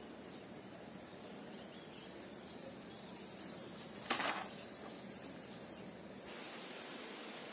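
Faint steady outdoor hiss, with one brief swish about four seconds in as a short bamboo fishing pole is swung to cast a baited line.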